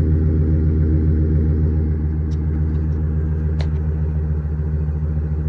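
2013 Chevrolet Silverado's 5.3 V8 idling after a cold start, heard at the exhaust tip through a Flowmaster 40 series muffler: a steady low rumble that eases slightly about two seconds in.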